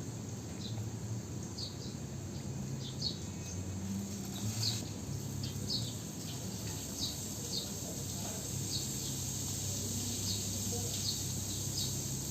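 A small bird chirping, short high chirps repeating irregularly, over a steady hiss and low hum.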